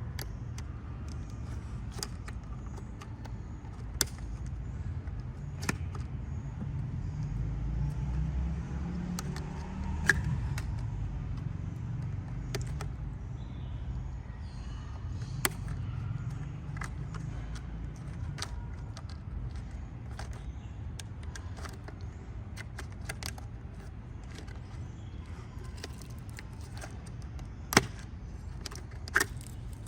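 Scattered sharp clicks and clinks of hand work on the engine computer's plastic housing and connectors, over a steady low rumble. The two loudest clicks come near the end.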